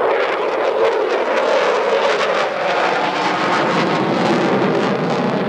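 Loud jet noise from a Grumman F-14 Tomcat's twin engines as it flies by in a tight, high-g turn: a steady rushing roar with a crackling edge.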